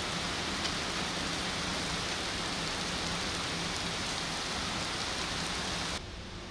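Steady heavy rain pouring down and splashing into puddles. It cuts off suddenly near the end, leaving a much quieter steady hiss.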